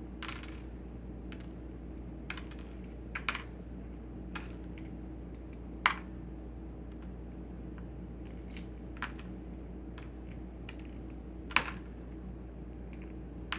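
Hard-boiled eggshells being cracked and picked at by hand: scattered small, sharp cracking clicks, with two louder snaps about six and twelve seconds in, over a steady low hum.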